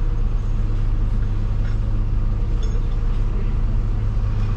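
Heavy diesel engine running steadily with a deep, even hum, from the digger or the concrete truck working on the site.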